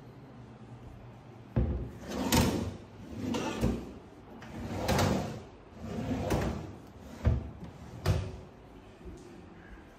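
Kitchen cabinet doors and drawers being opened and shut. A sharp knock comes about one and a half seconds in, then several swishing slides, then two sharp knocks near the end.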